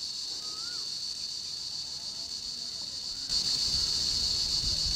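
Insects droning steadily in a single high-pitched band in pine forest. A little past three seconds in, the sound gets louder and a low rumble joins it.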